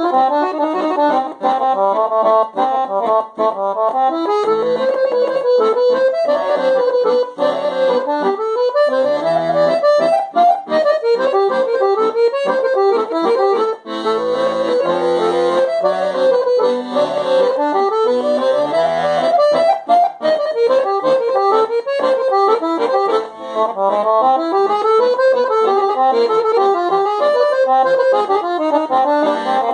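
Guerrini piano accordion played solo: quick runs of notes on the treble keyboard that rise and fall, with bass notes underneath at times.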